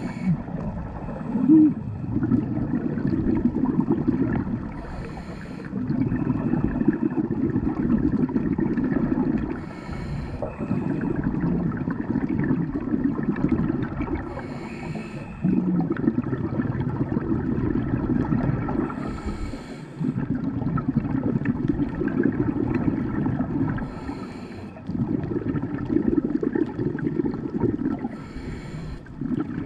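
Scuba diver breathing through a regulator underwater. Each breath is a short hiss as the air is drawn in, then a few seconds of bubbling rumble as the exhaled air is let out, repeating about every five seconds, some six breaths in all.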